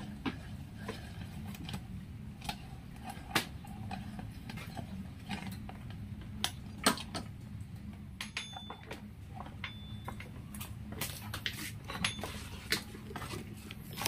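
Metal hand tools clicking, tapping and clinking against the motorcycle's rear fender and frame, irregular sharp knocks with the odd brief metallic ring, while the old rear fender is being unbolted and removed. A steady low hum runs underneath.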